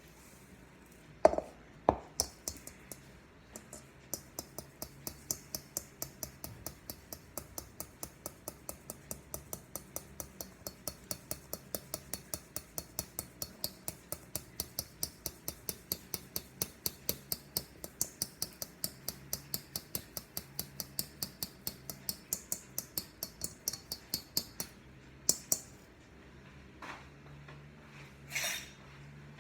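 Hand flour sifter working sugar through its mesh, its mechanism clicking in an even rhythm of about three clicks a second, with a few louder knocks at the start and near the end.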